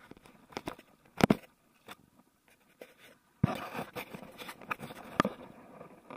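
Sharp knocks and scratchy scraping close to the microphone, from a hand turning the stern-mounted camera on an inflatable kayak. There is a loud knock about a second in, then another about halfway through, followed by a couple of seconds of rustling with further clicks.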